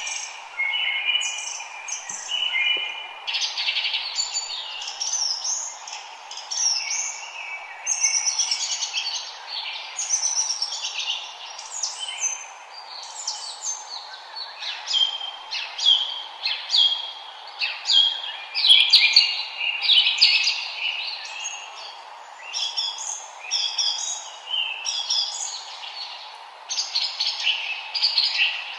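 Several songbirds singing and chirping together, a dense chorus of short, quick, high notes and downward-sweeping phrases over a faint steady hiss.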